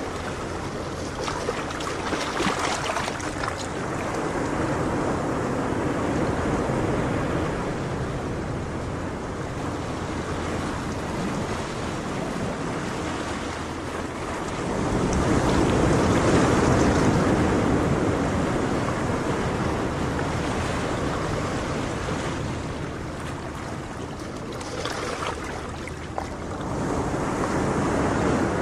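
Ocean surf: waves washing in and drawing back, a steady rushing that swells and eases slowly, loudest about halfway through and again near the end.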